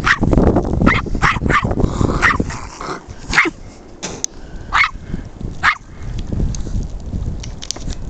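A dog barking: a quick run of barks in the first couple of seconds, then three more single barks spaced a second or so apart. Wind buffets the microphone underneath.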